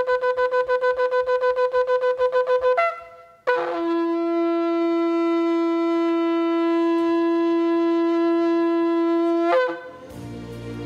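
A long curled shofar being blown: a rapid run of short broken notes, about eight a second, then after a brief break one long steady blast of about six seconds that lifts in pitch as it ends.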